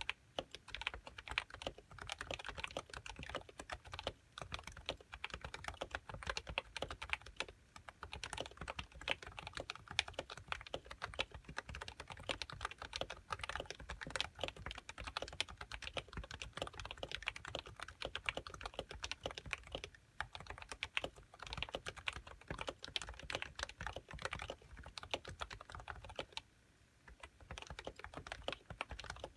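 Steady fast typing on a Happy Hacking Keyboard Professional (first model) with 45 g uniform-weight Topre electrostatic capacitive switches and HiPro keycaps, a dense run of keystrokes. The typing stops briefly near the end, then picks up again.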